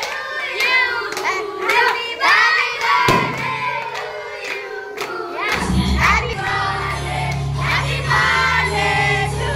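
A group of young voices singing and shouting together, with hand claps. About halfway through, loud music with a deep bass comes in under the voices.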